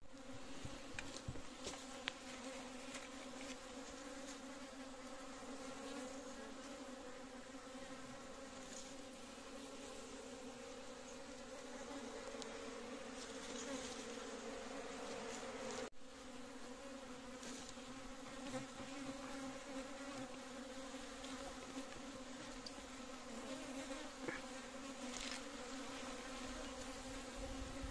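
Honey bees buzzing around their open hive as its combs are taken for honey: a steady, even drone with a low hum and a higher overtone. The sound briefly drops out about halfway through.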